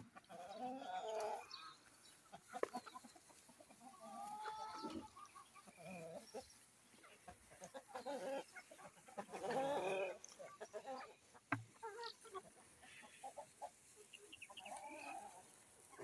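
A flock of free-range Sasso and improved kienyeji chickens clucking and calling on and off, several birds at once, loudest about nine to ten seconds in.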